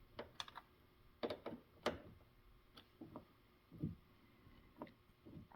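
Light clicks and taps, about a dozen at irregular intervals, from car door lock hardware being handled and fitted into the door.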